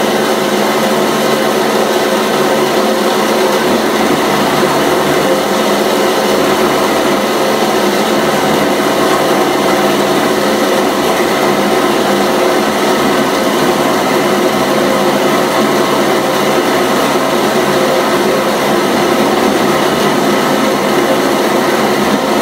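A small electric motor running steadily, a constant machine hum with several steady tones.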